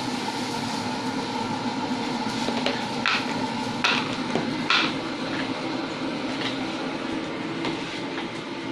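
Steady frying sizzle from a hot pan, with a few sharp metal clinks of a spatula against the pan, mostly around the middle.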